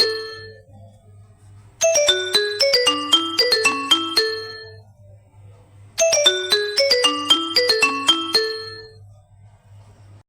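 Nokia 5 mobile phone ringtone: a short melody of quick, bright, bell-like notes. The end of one play rings off at the start, and the tune then plays twice more, starting about 2 and 6 seconds in. The last play fades out near the end.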